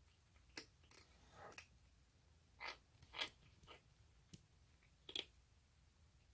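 A baby orange tabby kitten eating, with faint, irregular crunches and clicks of chewing, about eight in six seconds.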